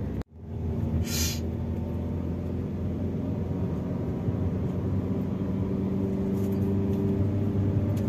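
Steady engine and road rumble heard from inside a moving car's cabin, after a moment's break at the very start. A short hiss comes about a second in.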